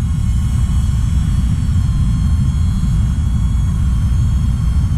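Faint, steady high whine of a DJI Neo mini drone's propellers in flight, under a heavy low rumble of wind on the microphone, which is the loudest sound.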